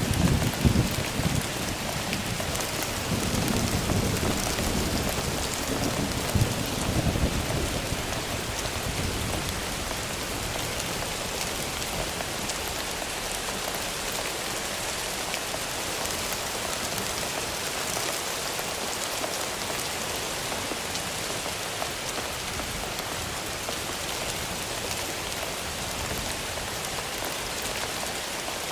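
Steady heavy rain with rolls of thunder rumbling in the first several seconds, then fading away, leaving the rain alone.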